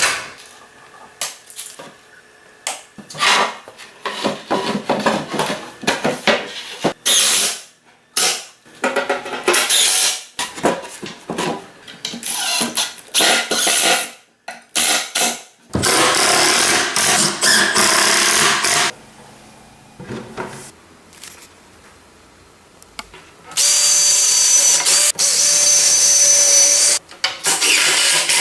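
Woodshop work sounds: scattered knocks and clatters of wooden parts and tools, then a dense stretch of noisy work a little past the middle. Near the end an electric power tool runs steadily for about three seconds with a steady whine.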